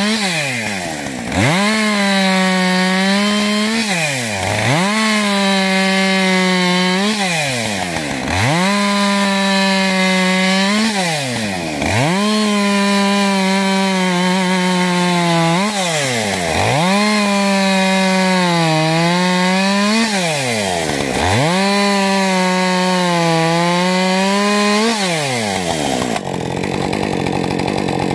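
Husqvarna 550 XP G Mark II two-stroke chainsaw making repeated crosscuts in a frozen spruce log: about seven stretches at full throttle of three to four seconds each, the revs sagging a little under load, each broken by a quick drop and rise in pitch as the throttle is let off and opened again. Near the end it drops back to idle and keeps running.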